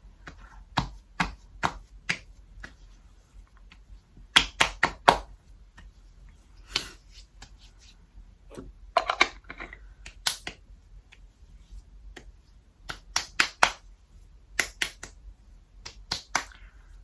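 Hands patting skincare lotion into the face: sharp slaps and taps of palms and fingertips on skin, coming in quick irregular clusters of a few pats with pauses between.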